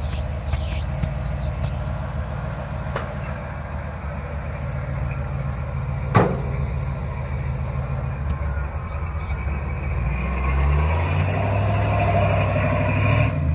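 A 1953 Chevy pickup's small-block 350 V8 idling steadily, then getting louder with its pitch shifting in the last few seconds as the truck pulls away. A sharp knock about six seconds in, with a fainter one about three seconds in.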